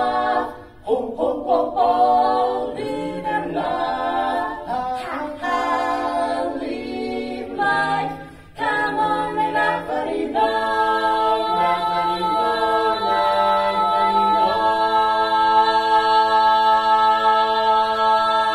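Barbershop quartet singing a cappella in four-part close harmony, in short phrases with brief breaks, then sustaining one long final chord from about halfway through.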